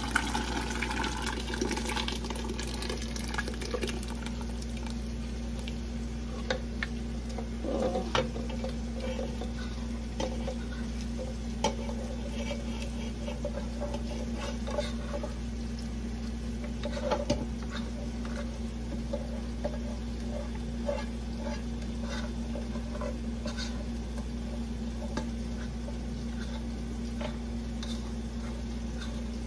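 Creamy Alfredo sauce and shrimp cooking in a pan with a light sizzle, stirred with a utensil that clicks against the pan now and then, over a steady low hum.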